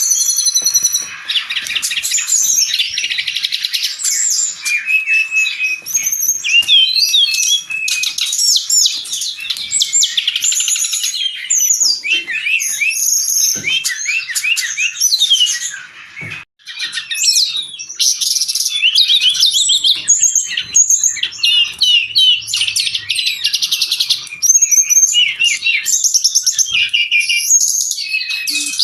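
Brown-chested jungle flycatcher singing without pause in a fast, rich stream of high warbling phrases and trills, broken once by a short gap about sixteen seconds in.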